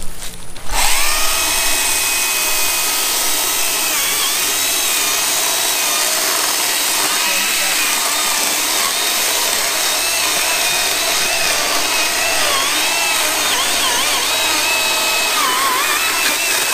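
Stihl battery-powered chainsaw cutting into a shrub stump: a steady electric motor whine over the noise of the chain in the wood, its pitch dipping and wavering as the chain loads up in the cut.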